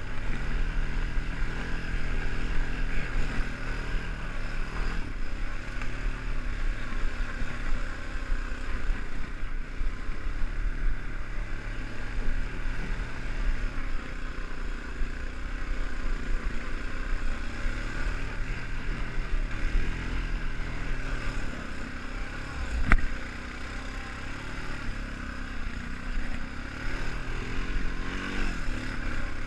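ATV engine running steadily under way, with one sharp knock about three-quarters of the way through.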